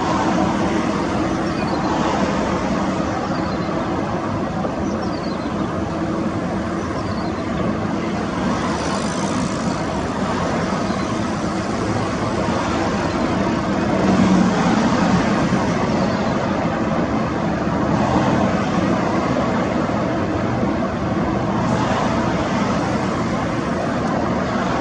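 Boeing 787-8 jet engines running with a steady, loud rumble and hiss, with a few faint falling whines in the first several seconds.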